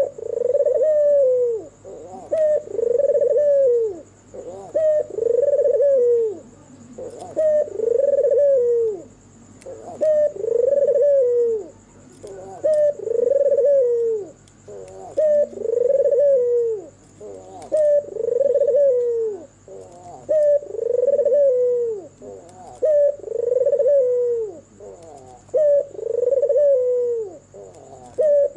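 White, red-eyed Barbary dove (ringneck dove) cooing its song over and over, one phrase about every two and a half seconds, each coo falling in pitch at its end.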